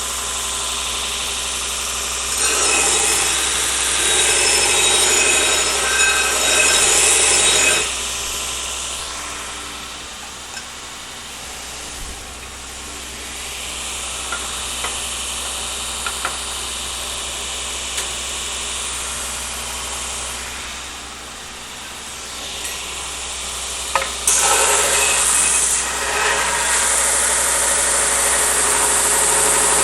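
Belt grinder running, with a steel Damascus blade pressed against the abrasive belt over the aluminum wheel: a loud grinding hiss from about two to eight seconds in and again from about twenty-four seconds on, with the motor and belt running more quietly between passes.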